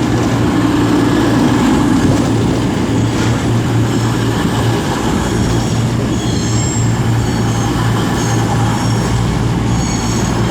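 A Class 221 Super Voyager and a Class 220 Voyager diesel multiple unit pulling into the station, their diesel engines giving a steady low hum under the rumble of the coaches. From about six seconds in, high thin squeals come from the wheels and brakes as the train slows.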